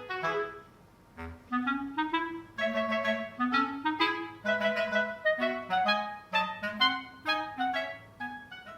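Background music: a light, bouncy melody of short notes led by a clarinet-like woodwind.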